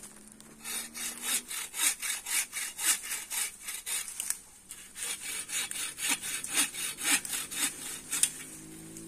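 Hand bow saw cutting through an oak branch, quick even back-and-forth strokes of the blade biting into the wood, with a short pause about halfway through.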